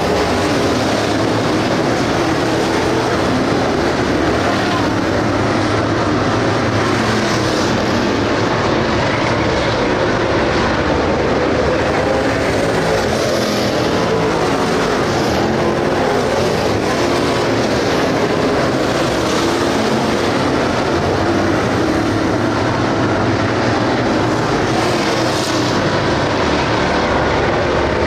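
A field of dirt late model race cars with GM 602 crate V8 engines running at racing speed around a dirt oval, their engine noise loud and steady.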